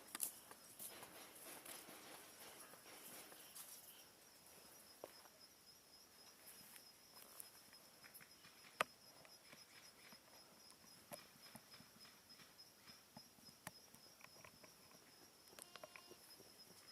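Quiet woodland ambience: faint footsteps and rustling in the first few seconds, scattered soft clicks, and one sharp click about nine seconds in, under a steady high-pitched tone.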